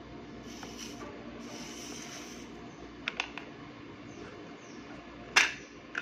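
Small plastic parts being handled: brief rustles, two light clicks about three seconds in, then one loud, sharp click or snap near the end, over a steady low room hum.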